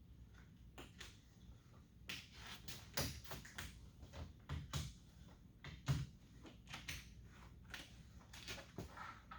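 Hands pressing a door's rubber weatherstrip and trim back into place on a truck door: irregular soft clicks and knocks, the loudest about three and six seconds in.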